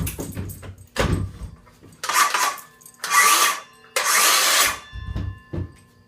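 Knocks and clunks of a cordless power tool being readied and handled at the workbench: two sharp knocks, then three short hissing bursts about a second apart, then a couple of low thuds near the end.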